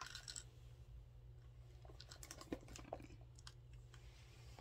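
Faint handling sounds as items are taken out of a small leather handbag: a short rustle at the start, then a few scattered light clicks and taps.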